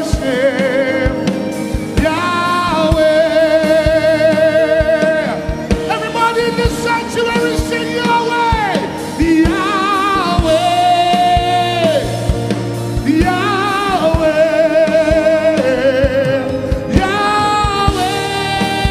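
Live gospel worship music: a singer holds long notes with a wavering vibrato, moving to a new note every few seconds, over a band with steady drum hits.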